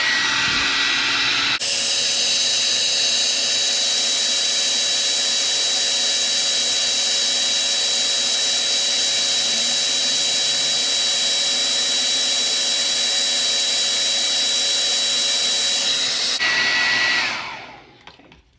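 Handheld hair dryer running on its highest heat setting: a steady blowing hiss with a high whine, spinning up at the start and winding down near the end. It is heating a plastic glasses top frame to make it pliable for bending.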